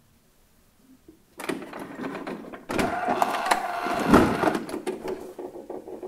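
HP all-in-one inkjet printer's upper unit (service flap) being lifted open: plastic creaking and rattling from about a second and a half in, then louder clattering with a brief whir of the mechanism and a sharp knock as the flap reaches its open position.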